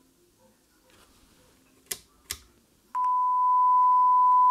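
A steady 1 kHz sine test tone from a test speaker, driven through the Grundig Satellit 6001's audio amplifier, cuts out; after two sharp clicks it comes back louder just under three seconds in. The dropout is caused by a dirty switch or poor contact in the signal path, a switch the owner says needs cleaning.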